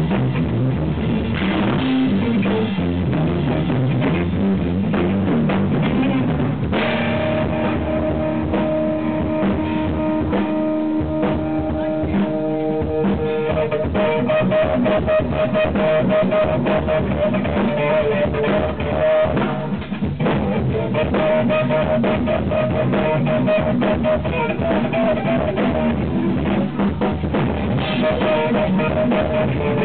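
Live instrumental jazz-rock fusion trio playing: electric guitar, bass guitar and drum kit, recorded overdriven and distorted. About seven seconds in, long held notes come in over the drums.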